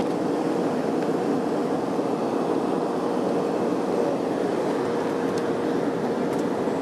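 Passenger aircraft cabin noise heard from inside the cabin: a steady rush of engine and airflow noise with a faint constant hum.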